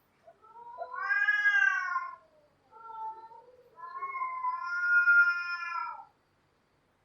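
Cats yowling: a long wavering yowl that rises and falls about a second in, a short yowl near the middle, then another long, drawn-out yowl that sags in pitch as it ends.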